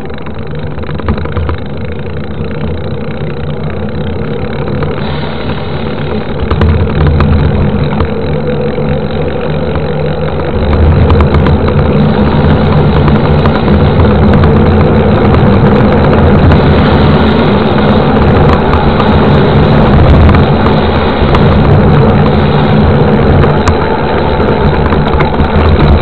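Wind rushing over the microphone of a camera mounted on a moving mountain bike, mixed with the rumble of its tyres rolling on the road. It is a steady, loud rush that gets louder after about six seconds and again after about eleven, as the bike picks up speed.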